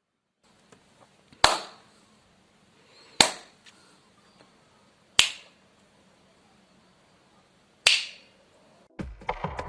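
Four sharp snaps, each dying away quickly, spaced a second and a half to nearly three seconds apart; music begins just before the end.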